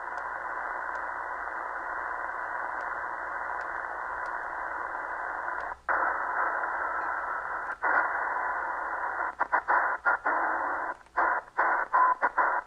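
Eton Elite Executive shortwave radio's speaker hissing with band noise on the 20-metre ham band in sideband mode, with no station heard: the bands are in poor shape. The hiss drops out briefly about six and eight seconds in, then chops on and off rapidly near the end as the frequency is stepped.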